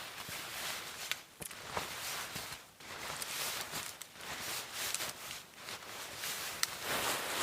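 Footsteps in snow, irregular steps with some gear rustling.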